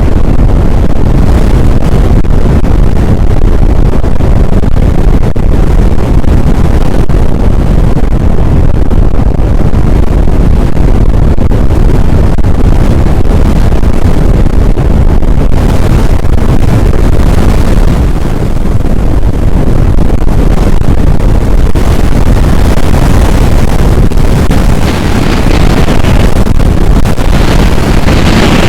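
Strong wind buffeting the microphone: a loud, steady rumble, heaviest in the low end, with a little more hiss near the end.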